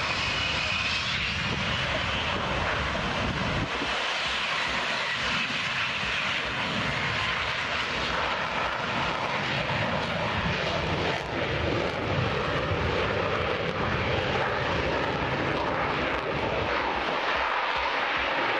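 Military fighter jet taking off and climbing away, its jet engine giving a loud, steady roar throughout.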